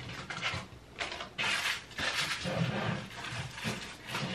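Rummaging through things in a cabinet under a bathroom sink: irregular rustling and knocking as items are shifted around.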